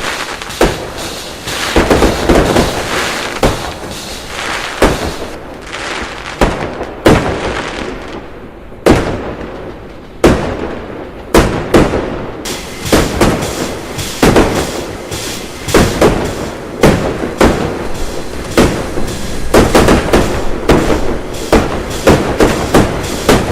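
Fireworks going off: an irregular string of sharp bangs over crackling, coming thicker and faster in the second half.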